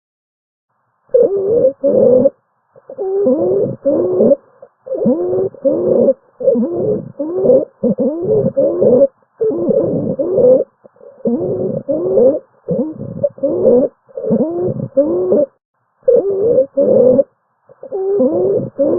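Stridor: a high-pitched, musical crowing sound on each breath, gliding in pitch and repeating about a dozen times in quick succession with short silent gaps. It is the sign of an obstruction in the upper airway (trachea).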